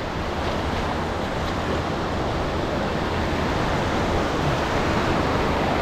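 Shallow sea surf washing in and out over sand in a steady rush.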